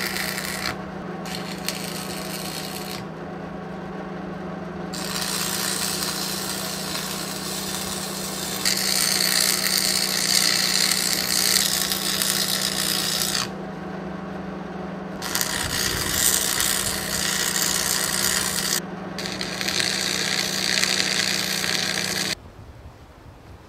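Stick welding with a Lincoln 225 arc welder: the arc crackles and sizzles in several long runs broken by short pauses, over a steady low hum from the welder. The welding cuts off near the end.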